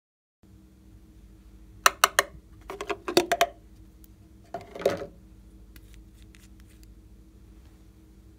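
Small glass nail polish bottle handled and opened: sharp clicks and clinks in three short clusters about two, three and five seconds in, then a few faint ticks, over a faint steady hum.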